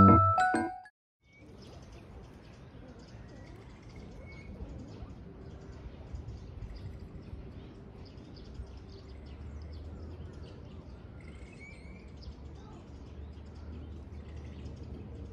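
Piano background music ends about a second in, followed by quiet outdoor ambience with faint, scattered bird chirps. A low steady rumble comes in about nine seconds in.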